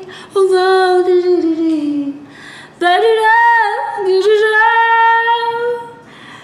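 A woman singing unaccompanied. The first phrase slides down in pitch, and after a short breath a second phrase holds one long, steady note.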